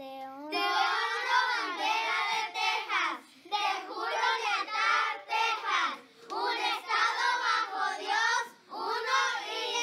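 Children's voices reciting the Texas pledge in Spanish in a sing-song chant, phrase by phrase, with short pauses between phrases.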